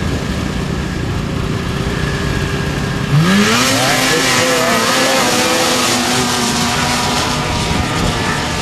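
Two 800 cc two-stroke race snowmobiles running at the start line, then launching at full throttle about three seconds in: the engine pitch sweeps sharply up and holds high as the sleds pull away up the hill, with a loud hiss of track and exhaust.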